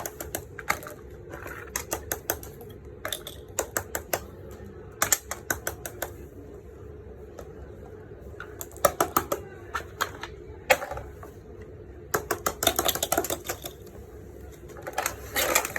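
Rapid clicks and taps in irregular clusters, from small plastic fidget toys being handled and clicked.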